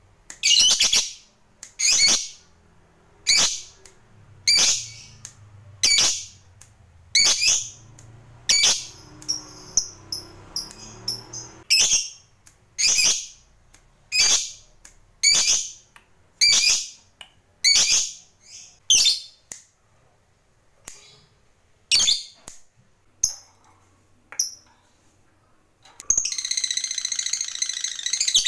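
A lovebird gives short, sharp high calls about once a second. Near the end it breaks into a long, rapid chattering trill, the 'ngekek panjang' that keepers prize.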